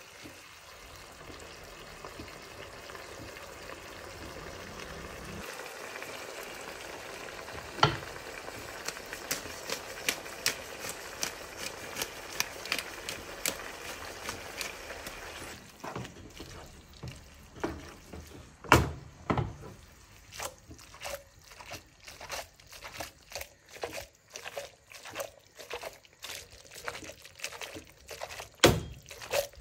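Food cooking in a pan: a steady sizzle, with utensils clicking against the pan more and more often. About halfway through, the sizzle drops away and a run of utensil clicks and knocks follows, two of them louder.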